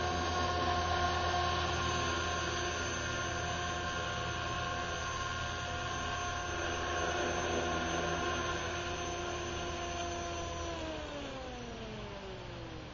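Electric RC helicopter (Align T-Rex 450 SE V2) running with its brushless motor and rotor head at a steady whine, then spooling down with a falling pitch from about ten and a half seconds in.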